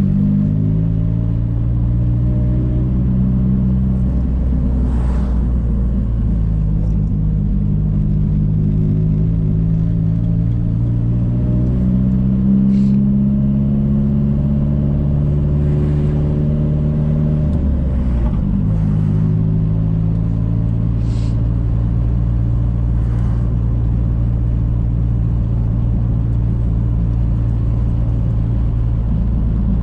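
Nissan S14 240SX's engine running under way, its pitch stepping up and down a few times as the car changes speed, with a few faint clicks.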